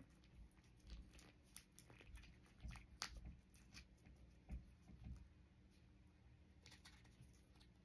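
Near silence with faint, scattered small clicks and crinkles of a plastic hot sauce packet being squeezed out over food.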